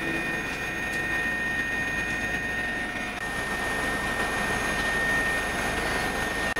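Steady engine and airflow noise inside a small aircraft's cabin in flight, with a steady high whine running through it.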